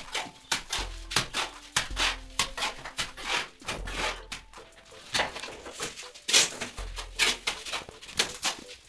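Cement-sand mortar being flung from a metal pan onto a brick wall as a spatter coat: a quick, irregular run of short splats and scrapes as it is scooped and thrown again and again.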